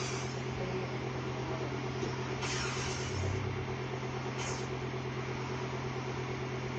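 Steady low machine hum, even in level throughout, with three short swishes over it, one at the start, one about two and a half seconds in and one about four and a half seconds in.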